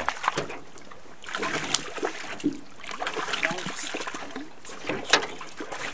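A freshly caught fish thrashing and splashing as it is handled, with irregular splashes and clicks and one sharp knock about five seconds in; the fish is feisty.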